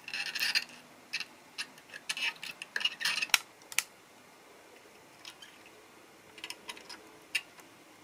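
Soldering work on a circuit board: irregular light metallic clicks and clinks as the soldering iron and solder wire are handled against the component leads. The clicks are busy in the first four seconds, thin out, and pick up again near the end.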